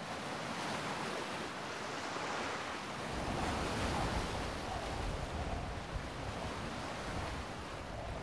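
Sea surf washing against a rocky shore, a steady rushing noise with wind. From about three seconds in, a low wind rumble on the microphone joins it.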